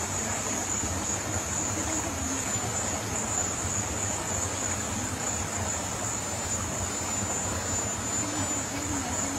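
Steady rush of a shallow river and its small waterfall, with insects keeping up a continuous high-pitched drone over the water.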